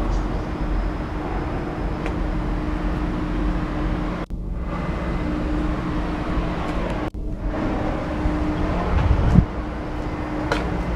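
Cummins LTA-10G1 turbocharged diesel engine of a 200 kW generator set running steadily at its governed 1,800 rpm, a constant low hum. The sound cuts out briefly twice, and a low thump comes near the end.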